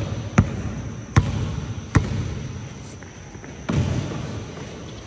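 Sharp thumps repeating about every three-quarters of a second, three of them in the first two seconds, then a steady low background noise.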